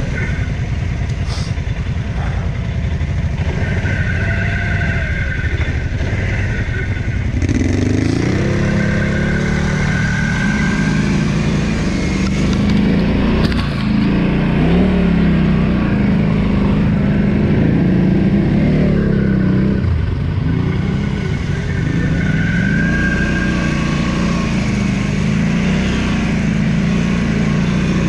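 Quad bike (ATV) engine running under load off-road, its pitch rising and falling over and over as the throttle is opened and eased.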